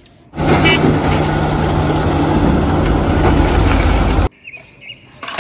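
Large Caterpillar hydraulic excavator running, a loud steady engine noise with a low hum, starting about a third of a second in and cutting off suddenly after about four seconds.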